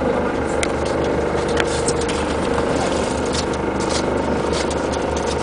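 Boat engine idling with a steady hum, with a few short, light ticks over it.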